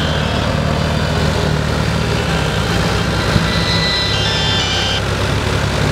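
Diesel tractor engine running steadily under load while it works a rear rotary tiller, with a thin high whine over it for a couple of seconds around the middle.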